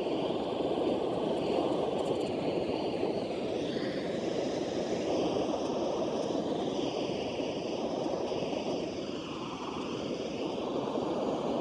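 Handheld gas weed-burner wand burning steadily, a constant rushing flame noise as it is held on weeds in a concrete crack.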